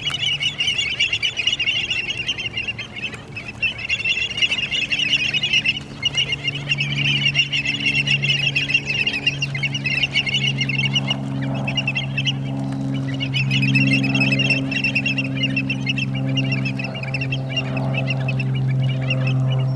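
A flock of birds calling continuously in a thick, rapid chatter, over a steady low hum.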